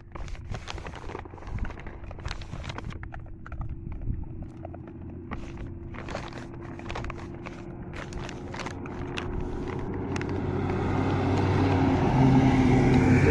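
Scattered clicks and scuffs on gravel, then a truck engine running, growing louder over the last few seconds until it is the loudest sound.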